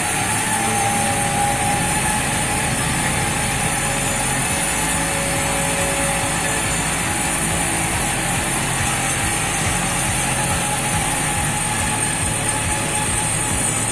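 A heavy machine's engine running steadily under a dense, even mechanical noise.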